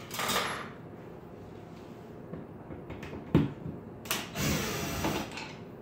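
DeWalt cordless drill running in short spurts to back out the screws of a wall phone jack plate: a brief run at the start and a longer one of about a second after four seconds in. A single sharp knock, the loudest sound, comes about three and a half seconds in.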